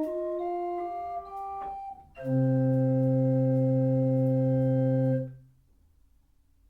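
Wooden pipe organ playing a short run of single melody notes, then, after a brief break, a final chord held about three seconds and released, leaving only faint room tone.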